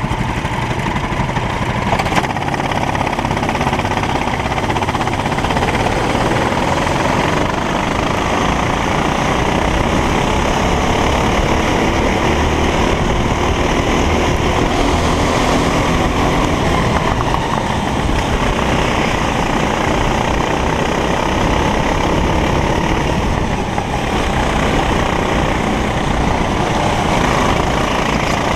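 Racing kart engine running loudly and steadily, with some faint rises and falls in pitch.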